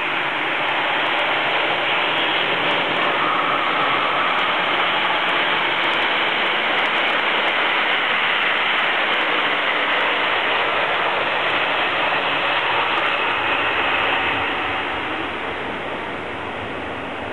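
Keisei AE-series Skyliner train passing through the station at speed: a loud, steady rush of wheels on rail and air. It starts abruptly and eases off over the last few seconds as the train moves away.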